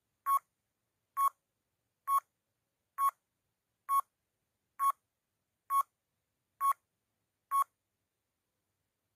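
Countdown timer sound effect: nine short, identical beeps, one just under every second, each marking a number of the countdown.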